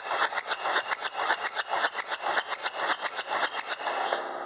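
Starter motor cranking a 2.2-litre four-cylinder turbodiesel engine for a compression test, with fast, even pulses as each cylinder comes up on compression. About four seconds in the pulsing stops and a steady hum remains.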